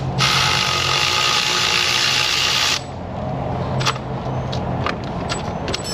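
Small cordless power ratchet running a nut down onto a ground cable for about three seconds, then stopping; a few light metallic clicks follow as the tool is worked on the fastener.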